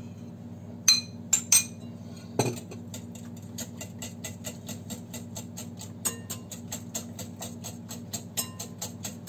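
A metal spoon clinks a few times against the bowls as yogurt is scraped off, then after a single thud a wire whisk beats against a glass bowl of beaten eggs and yogurt in a steady rhythm of light clinks, about four strokes a second. A steady low hum runs underneath.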